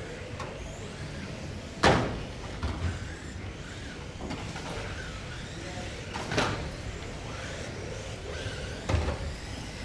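GT12 1/12-scale electric RC cars racing on a carpet track, with sharp knocks of cars striking the track barriers about two seconds in, again near six and a half seconds and near nine seconds, the first the loudest.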